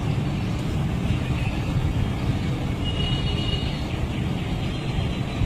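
Steady low background rumble with no clear single source, and a faint high tone briefly about three seconds in.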